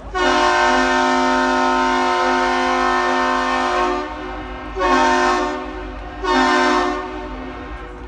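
Ship's horn of the 1,004-foot Great Lakes freighter American Spirit: a loud, deep chord of several steady tones, one long blast of about four seconds, then two short blasts.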